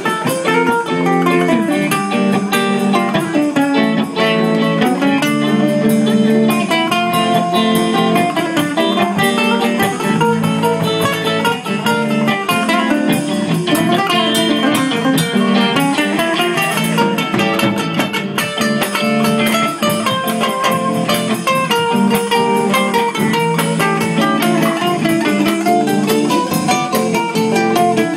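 Live acoustic guitar and a smaller plucked string instrument playing together, with quick runs of notes climbing and falling over a steady lower accompaniment.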